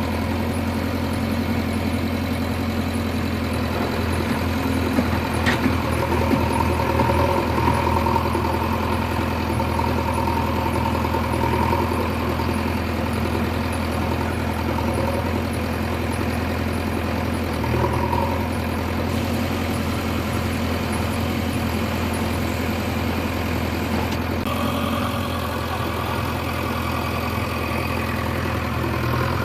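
Heavy diesel engine running steadily, a little louder for several seconds in the first third, with a single short knock about five seconds in.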